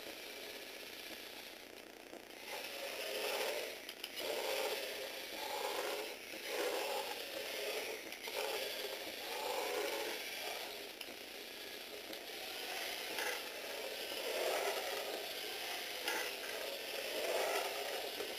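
Small electric motor in a Tamiya Universal Gearbox whirring through its plastic gears as it drives a Lego Technic remote-control car. The whirring comes in repeated surges of about a second each, starting about two and a half seconds in.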